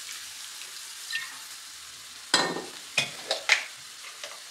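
Prawns and masala sizzling in hot oil in a non-stick frying pan as a little water goes in: a steady frying hiss, broken by a few sharp, loud crackles about two and a half to three and a half seconds in.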